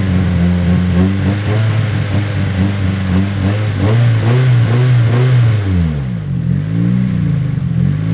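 Nissan S14 Silvia's SR20 four-cylinder engine running and being revved, its revs climbing about halfway through and then blipped up and down a few times near the end. It is being run to check whether a newly fitted coil pack loom has cured its misfire.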